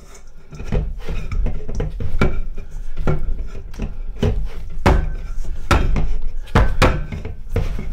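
Hands kneading a crumbly quark-and-butter dough in a stainless steel bowl on a wooden table: irregular knocks and thuds, roughly one or two a second, as the dough is pushed down and the metal bowl knocks against the tabletop.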